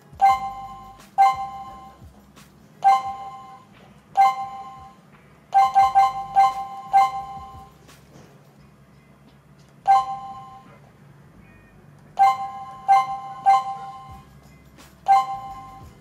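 CS108 WiFi/GSM alarm panel's touch keypad beeping as its keys are pressed to leave a settings menu and bring up the password prompt: about fifteen short beeps, irregularly spaced, with a quick run of five or six about six seconds in.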